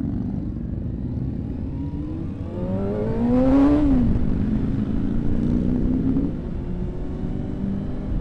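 Kawasaki Ninja 636's inline-four engine accelerating hard. The revs climb, drop sharply at an upshift a little under 4 s in, then climb again, over a steady wind rumble on a helmet microphone.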